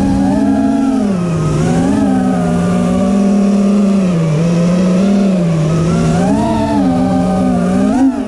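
Racing FPV quadcopter's brushless motors and propellers whining, the pitch rising and falling over and over as the throttle is worked, with a quick dip near the end.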